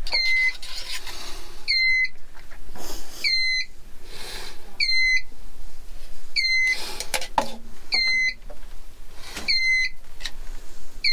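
Electronic alarm beeper chirping at a steady rhythm, a short high beep about every second and a half that dips slightly in pitch and then holds.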